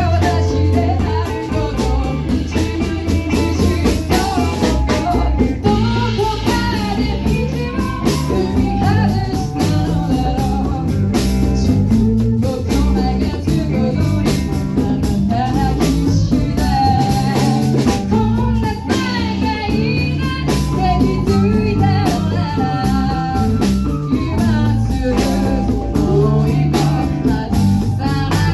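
Band playing a rock song: drum kit, bass and guitar under a melody line that moves above them.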